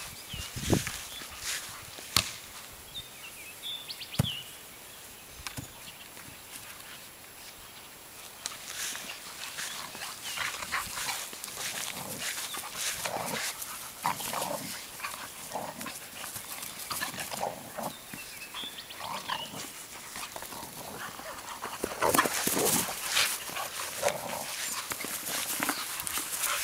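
Boxer dogs barking and making short play calls while they romp after a soccer ball. A few sharp knocks come in the first few seconds.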